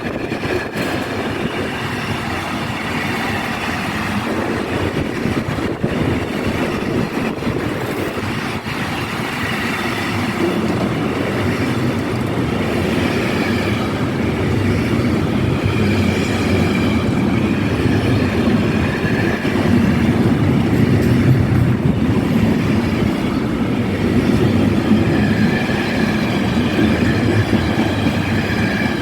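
Train running on the track: a steady rumble of wheels and running gear with faint high whining tones over it, growing a little louder about two-thirds of the way through.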